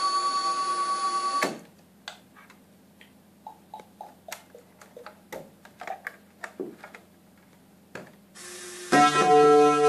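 Electronic instrument sounds played through a Korg G3 effects pedal. A held, pulsing tone cuts off about a second and a half in, followed by scattered clicks and short blips as the unit's controls are worked. A loud held keyboard-like chord starts near the end.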